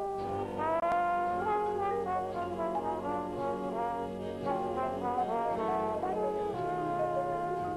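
Jazz trombone solo over a big band, the trombone sliding up into long held notes.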